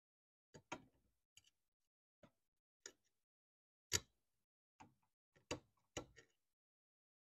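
About a dozen sharp, irregular clicks and taps of a metal screwdriver probing under a CRT's rubber anode cap during discharge and then being pulled away. The loudest click comes about four seconds in. No arc snaps were noticed during the discharge.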